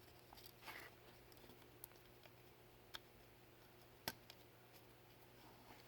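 Near silence: room tone with a few faint, brief clicks, the sharpest about four seconds in.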